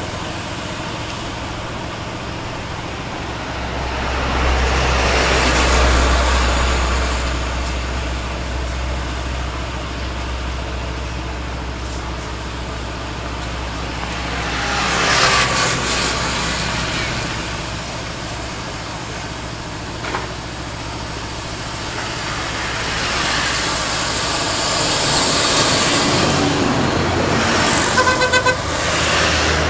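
Heavy trucks and a bus passing one after another on a road, with diesel engine rumble and tyre noise swelling as each goes by. Near the end a vehicle horn gives a quick run of short toots.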